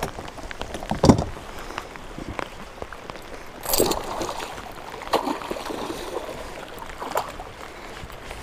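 Heavy rain hissing steadily on the lake around a plastic fishing kayak, with several knocks against the hull. The loudest is a deep thump about a second in. About four seconds in comes a splash of water beside the kayak from the fish being fought.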